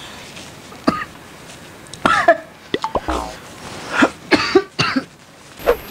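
A man coughing and clearing his throat in several short, separate fits, partly into a tissue, set off by the burn of extra-spicy cup noodles.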